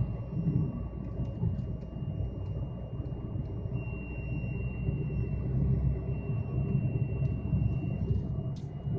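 The CNG gas pressure reducer of a Lada Vesta CNG whistling: a steady high-pitched whistle over the low rumble of the running car. The whistle is the reducer's fault, which has been getting louder.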